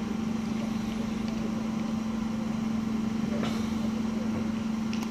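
A machine running steadily, giving a constant low hum with no change in pitch or level. A faint click comes about three and a half seconds in.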